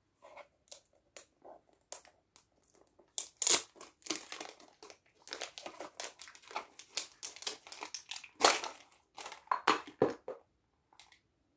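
A cardboard wand box and its wrapping handled and opened by hand: irregular crinkling and crackling with small knocks, with two louder crackles about three and a half and eight and a half seconds in.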